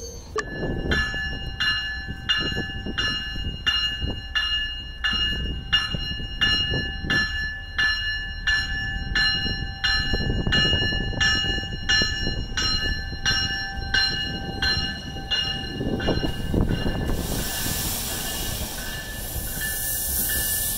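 A railroad bell ringing steadily about twice a second over the low rumble of a commuter train. The bell stops about three-quarters of the way through, and a loud, steady hiss takes over near the end.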